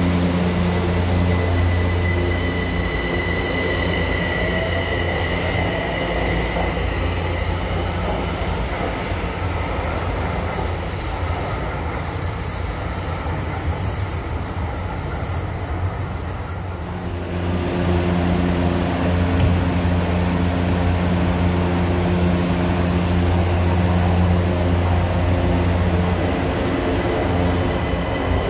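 São Paulo Metro trains at a station platform, with a steady electric hum from the trains. High wheel squeals come about halfway through, and then the louder hum of a train running along the platform.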